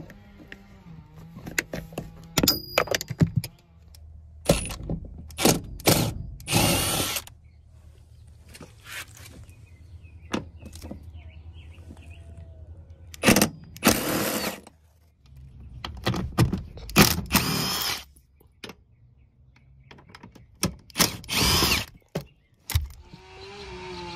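Cordless drill driving a socket to spin the car seat's 12 mm floor-rail bolts out, in repeated short runs of about half a second to two seconds.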